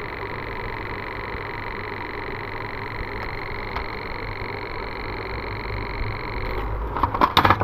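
A faulty Onida window air-conditioner control board, powered up with no display, giving off a steady high-pitched buzz with a fast flutter in it, the abnormal sound that marks its fault. The buzz stops about six and a half seconds in, and a few loud clicks follow near the end.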